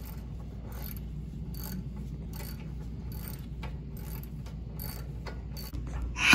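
Hand ratchet clicking in repeated short strokes, loosening front suspension nuts on a pickup truck. Right at the end a louder air impact wrench starts up.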